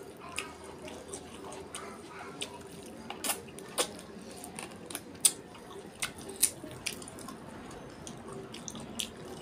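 Close-up wet eating sounds of a man eating duck curry with his fingers: irregular sharp, wet mouth smacks and squelches as the meat is pulled apart and bitten off the bone, one louder smack a little past the middle.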